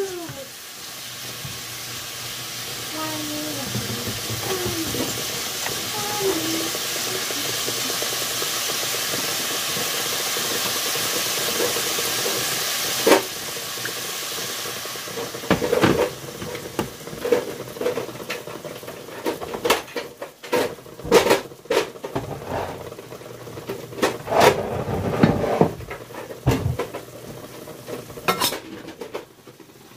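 Ground pork sizzling in a stainless steel skillet, a steady hiss for roughly the first half. After a sharp click the sizzle dies down, and a spatula scrapes and knocks repeatedly against the pan as the meat is stirred.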